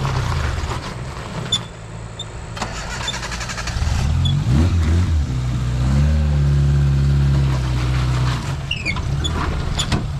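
Suzuki Samurai rock crawler's engine running at low revs as it crawls over concrete obstacle blocks. It revs up and back down briefly about four seconds in, then holds a little higher and louder for a couple of seconds.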